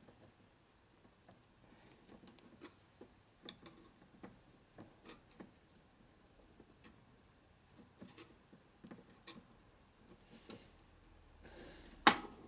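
Faint, irregular clicks and light scrapes of a small metal hand tool against a steel transmission gear, with a sharper click near the end.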